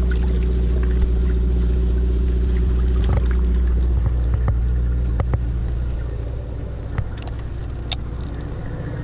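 Sportfishing boat's engine running with a steady low drone, easing a little quieter about six seconds in. Scattered clicks and knocks sound on top of it.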